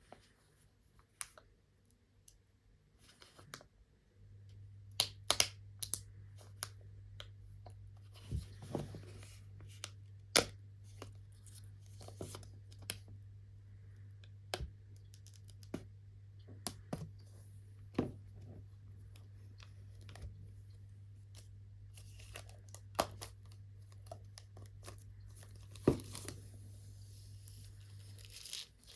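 Packaging being opened by hand: tearing and crinkling of paper and plastic, with sharp clicks and taps scattered throughout, over a steady low hum that starts about four seconds in.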